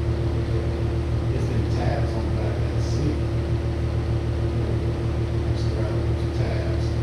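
Steady low mechanical hum with a constant droning tone, as from a running appliance or fan motor, with a few faint light knocks.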